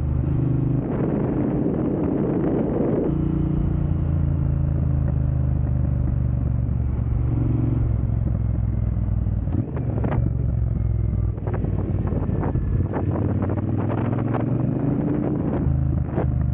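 Triumph Bonneville Speedmaster's 1200cc parallel-twin engine running through an aftermarket Jekill & Hyde exhaust, idling with a couple of brief revs. Over the second half a series of sharp pops and cracks comes through as the revs rise.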